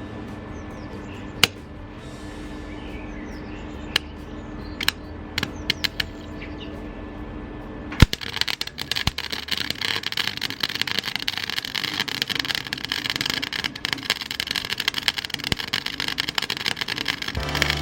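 Electric welding arc crackling and sizzling steadily for about nine seconds as pipe is tacked onto a mini bike exhaust, starting about eight seconds in with a sharp click. Before it, a steady hum with a few scattered clicks.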